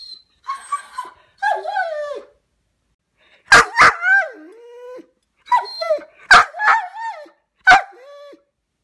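Longhaired Weimaraner barking and whining: softer whines at first, then from about three and a half seconds in a string of sharp barks, each trailing off into a whine that falls in pitch. It is the vocalizing of a dog left apart from its companion dog.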